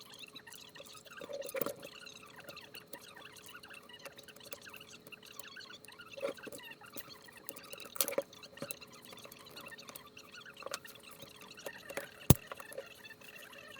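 Scattered small clicks and taps of hand-handled parts, with one sharp click near the end.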